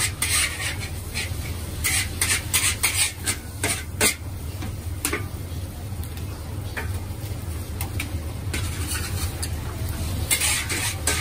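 Metal wok spatula scraping and clanking against a steel wok as noodles are stir-fried. There is a quick run of strikes through the first few seconds, a few more through the middle, and another cluster near the end, all over a steady low rumble.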